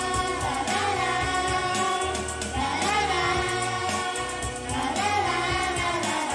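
Female voices singing a pop song together over a recorded backing track with a pulsing bass line.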